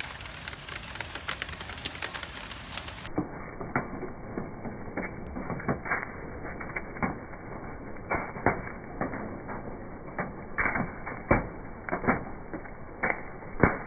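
Wood burning in a Canway stainless-steel wood-burning camp stove, crackling and popping with sharp pops at irregular intervals, the loudest near the end.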